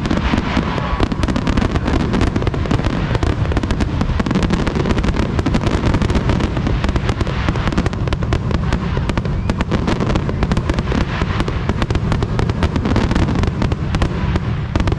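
Fireworks display going off in a rapid, continuous barrage: bangs and crackles packed close together with no break.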